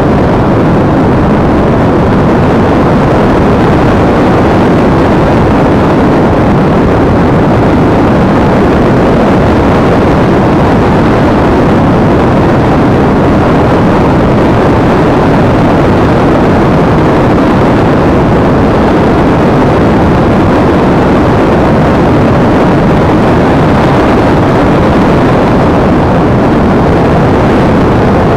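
Loud, steady rush of wind over the microphone of an action camera riding on a Multiplex EasyStar RC model plane in flight.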